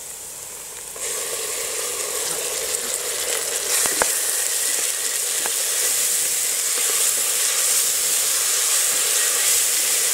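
Wet ground green masala paste (coriander, mint, green chilli, ginger, garlic and shallots) dropped into hot ghee and oil in an aluminium pressure cooker, sizzling loudly from about a second in as it fries. A wooden spatula stirs it, knocking on the pot a couple of times.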